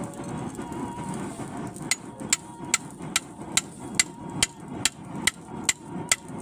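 Blacksmith's hammer striking hot iron on an anvil in a steady rhythm, about two and a half sharp, ringing blows a second starting about two seconds in, over a steady low rushing noise.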